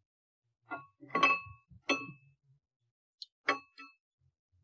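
Several sharp metallic clinks with a brief ring, the loudest about a second in: steel brake caliper parts, pads and tools knocking together as the front brake pads are fitted.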